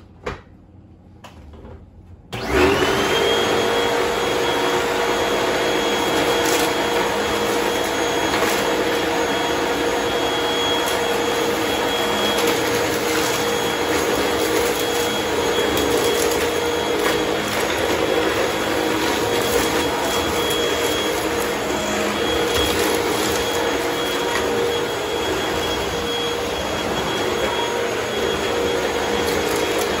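Hoover WindTunnel 2 upright vacuum cleaner switched on about two seconds in: its motor spins up with a quick rising whine and then runs steadily. Faint scattered ticks come as it sucks up a pile of dust, lint and wood chips.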